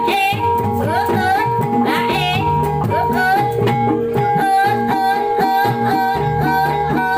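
Javanese Reog Ponorogo music: a high, wavering melody that slides and bends in pitch, over a repeating drum pattern and steady ringing metallic tones.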